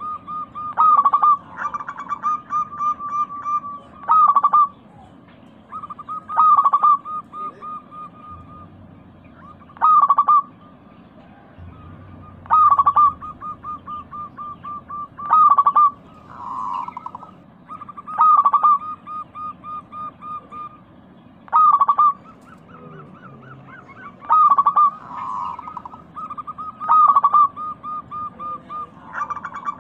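Local-strain zebra dove (perkutut) cooing. Each phrase is a fast run of rolling notes set off by a loud accented note, and the phrases repeat about every two to three seconds.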